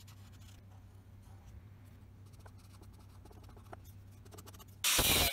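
Felt-tip permanent marker scratching faintly across a steel blade blank as lines are drawn on it, over a low steady hum. Near the end a loud rush of noise cuts in suddenly.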